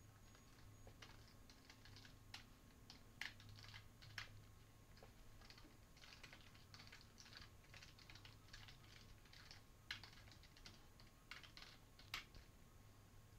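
Faint typing on a computer keyboard: irregular key clicks in quick runs with short pauses, with a few sharper, louder keystrokes.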